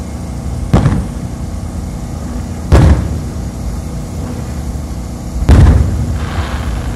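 Aerial firework shells bursting: three loud booms two to three seconds apart, the last the longest and heaviest, over a steady low rumble.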